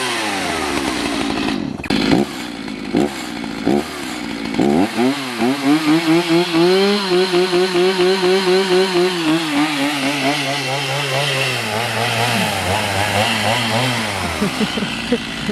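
Two-stroke chainsaw revved in a few short blips, then held at high throttle for several seconds, its pitch wavering and sagging to a lower running speed before it dies down near the end.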